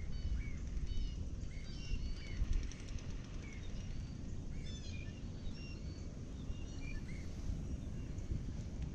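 Birds chirping, many short high calls of several kinds a second or so apart, over a steady low rumble of wind and water.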